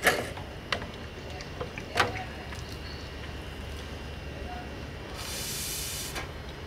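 Sharp clicks and knocks of a hose and its fittings being handled, then about five seconds in a hose nozzle sprays water in a hiss lasting about a second.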